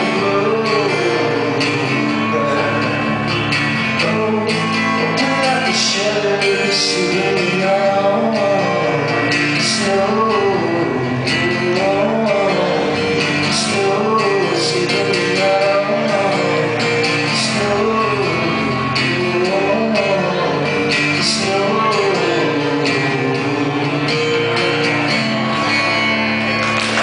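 Acoustic guitar strummed steadily with a male voice singing over it, the song's closing passage; the voice drops out in the last few seconds.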